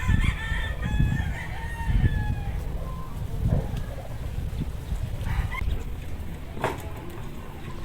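A rooster crowing, one long call over the first couple of seconds, with low thumps underneath.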